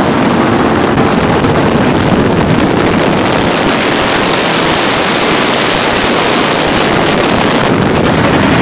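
Loud, steady rush of wind and road noise in a car travelling at speed, heard from inside the car, with engine noise underneath.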